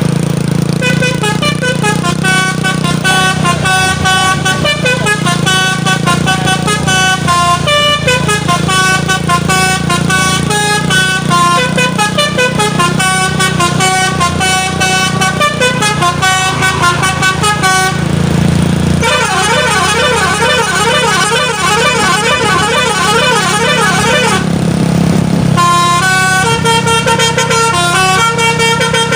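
A truck's telolet basuri multi-tone horn playing a tune of quick stepped notes over the truck's engine running. About two-thirds of the way through it switches for around six seconds to a rapid warbling trill, then the tune resumes.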